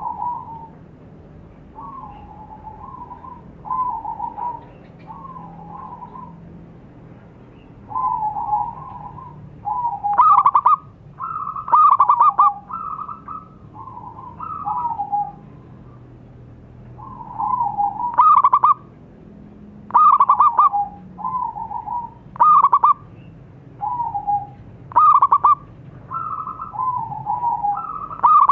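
Zebra dove (perkutut) cooing: a string of short, rolling coo phrases repeated every second or two. From about ten seconds in, some phrases are much louder than the rest.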